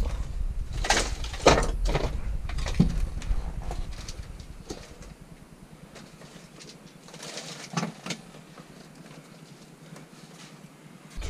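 Plastic car dash trim being handled and pushed into place: a run of knocks and clicks for the first few seconds, then fainter scattered knocks.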